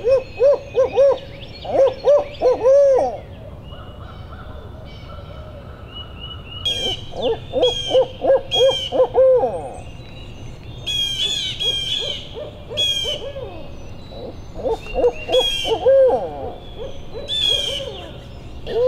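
Owl hoots traded back and forth between a hunter hooting an owl locator call with his voice and a wild owl answering. The hoots come in three rhythmic bouts of several notes each, used to try to make a roosted turkey gobble. High songbird chirps come in between from about a third of the way in.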